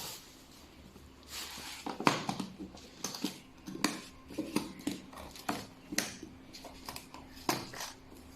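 Electric chiropractic spine adjusting gun clicking as it fires single impulses, about ten sharp clicks at irregular intervals over a faint steady hum.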